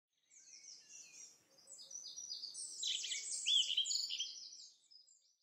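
Birds chirping and twittering in a short burst of fast, high chirps and quick falling notes. It starts softly, is loudest about three to four seconds in, then fades out.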